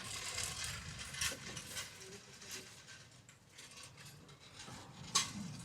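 Metal clicking and rattling of tools at work on a car's underside, with a sharp clank about five seconds in.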